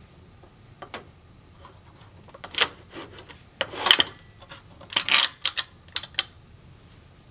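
Metal holding tabs of a soundbar wall-mounting bracket being slid and pressed into place against the soundbar by hand: an irregular run of clicks and short scrapes, loudest around the middle.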